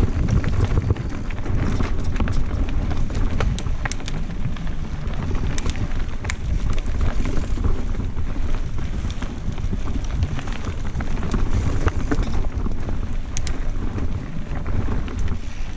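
Santa Cruz Blur cross-country mountain bike descending a rocky dirt singletrack: a steady rush of wind buffeting the camera microphone, with tyres rolling over dirt and stones and many small clicks and rattles from stones and the bike.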